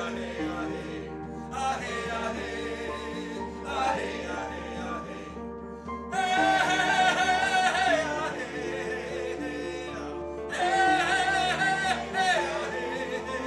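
Background music with held chords and a singing voice; the voice swells into louder sung phrases about halfway through and again near the end.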